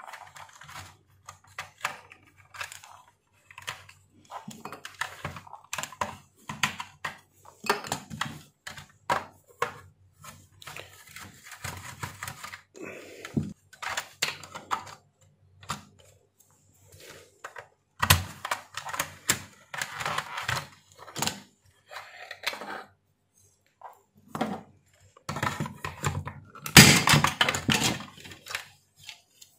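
Small plastic clicks, taps and scrapes as the plastic handle shell of a steam iron is pried apart with a small screwdriver, in an irregular run, with a louder clatter near the end as the handle cover comes free.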